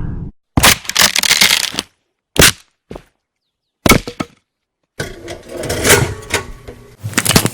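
A run of separate short sound effects, each cut off into silence: a noisy crack-like sound about half a second in, brief sharp hits near two and a half and four seconds, then a longer rough stretch with sharp clicks from about five seconds on.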